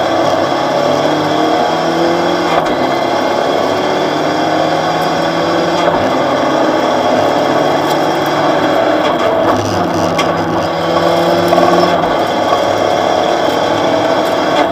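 Opel Astra OPC rally car's engine at speed, heard from inside the cabin: the revs climb for a few seconds, fall back, then climb again about ten seconds in, over steady tyre and road noise.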